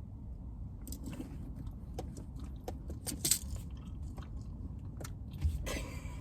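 Someone chewing and crunching food close to the microphone: scattered crisp crunches starting about a second in, over a low steady rumble.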